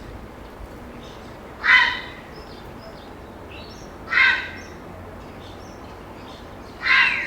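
Grey herons calling at a roost: three harsh calls, each about half a second long, coming about two and a half seconds apart over a steady background hiss.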